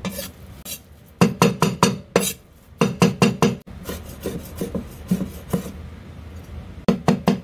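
Chinese cleaver chopping on a wooden chopping board, mincing fish paste from bighead carp with chopped ginger and chilli, in quick runs of knocks with short pauses between them.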